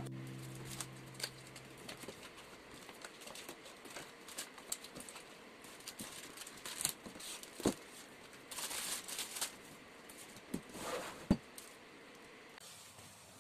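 Items being put away in a wooden cupboard: light knocks as a bottle and containers are set on the shelf and plastic snack packets crinkle. Near the end a sliding glass cupboard door slides along and shuts with a single sharp knock.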